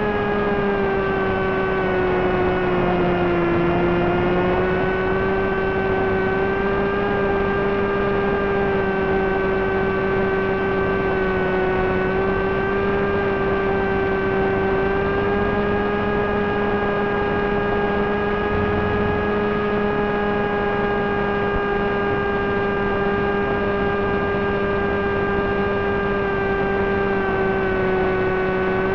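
Brushless motor and 6x3 propeller of a Wing Wing Z-84 flying wing, a Multistar Elite 2204 motor, droning steadily in cruise, picked up by the aircraft's onboard video link. The pitch sags a little over the first few seconds, then holds nearly level over a low steady hum.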